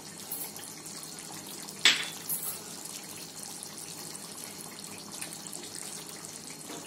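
Chicken karahi gravy simmering and bubbling in a steel pot, a steady soft hiss with faint crackle. A sharp click about two seconds in, and a smaller one just after.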